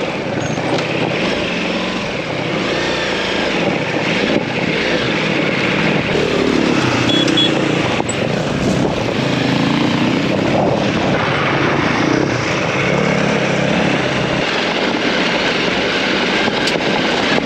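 Ducati DesertX's V-twin engine under way off-road, its note rising and falling with the throttle, with a few brief dips, over a steady rush of wind noise.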